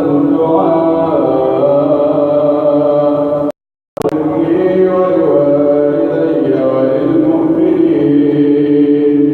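Quran recitation: a voice chanting in long, drawn-out melodic phrases with sustained, gliding notes. It cuts out abruptly for about half a second a little past three seconds in, then carries on.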